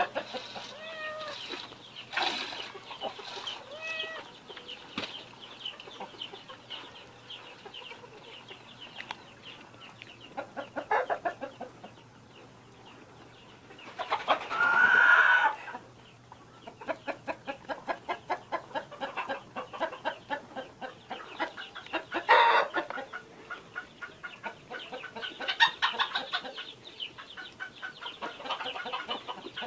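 Hens clucking in a farmyard, with one louder, drawn-out call about halfway through. Through the second half comes an even series of short squirts, about two to three a second, from a cow being milked by hand into a bucket.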